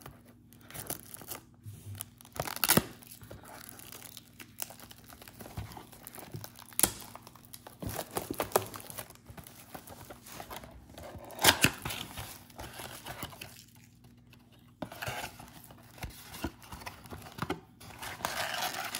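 Packaging of an NBA Hoops trading-card blaster box being torn open and handled, with tearing and crinkling in irregular bursts and a few sharp snaps, the loudest about eleven and a half seconds in.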